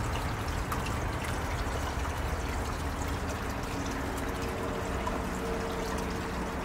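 Water pouring and trickling steadily into a bathtub pond from the overflow return of an overhead 5-gallon bucket filter. A faint steady hum joins about four seconds in.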